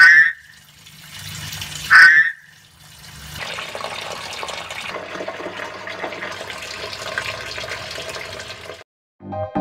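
Two short, loud croaking calls from pacman frogs, about two seconds apart, followed by a steady watery hiss from the tank.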